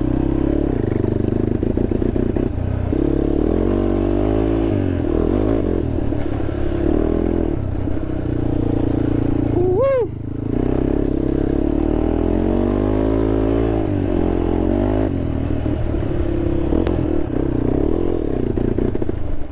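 Honda TRX sport quad's engine running while being ridden off road, its pitch climbing and falling again and again with the throttle and gear changes. About halfway through, it revs up sharply and drops back just as fast, then briefly goes quieter.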